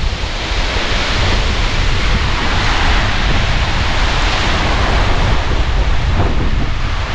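Ocean surf breaking and washing over a boulder shore, with wind buffeting the microphone. The wash swells in the middle and eases toward the end.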